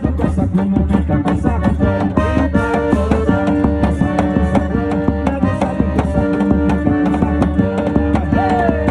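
Forró band playing without vocals: an accordion holds melody notes over a fast, steady drum beat.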